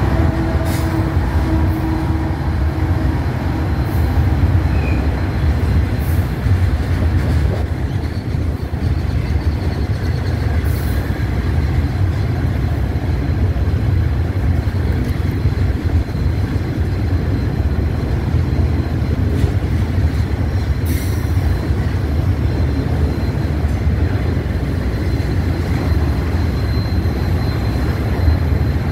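Freight train passing close by. A Union Pacific diesel locomotive's engine tones fade in the first few seconds, then autorack cars roll past with a loud, steady rumble of wheels on rail and a few sharp clicks.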